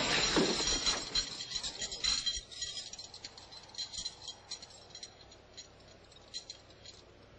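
A crowd's outcry dies away over the first two seconds or so, leaving faint, scattered metallic clinks and ticks.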